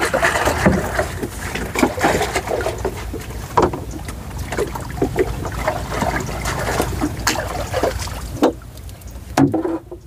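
Irregular knocks, clicks and rustling as people shift about in a small paddled boat and handle luffa vines, over a steady low rumble. It grows quieter near the end.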